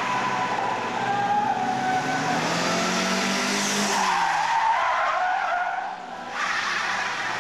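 Austin Montego saloons being slid and spun, tyres squealing on tarmac over the engine as it revs. The engine note climbs about two to four seconds in. The squeal eases briefly near the six-second mark, then starts again.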